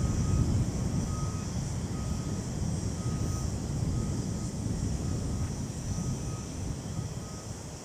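Steady low rumble of outdoor industrial-site ambience, with faint short high beeps recurring roughly once a second.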